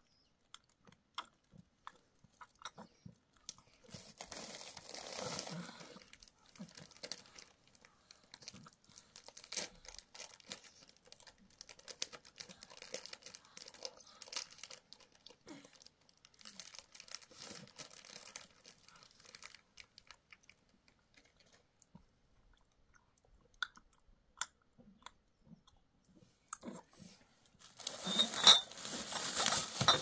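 Plastic snack wrappers and bags crinkling and rustling on and off, with crunching and chewing of snacks, and a louder stretch of rustling near the end.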